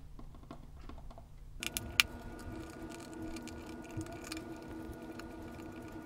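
Light clicks and small rattles as hands handle the opened Sonoff NSPanel Pro, with one sharper click about two seconds in. A faint steady hum sets in shortly before that click.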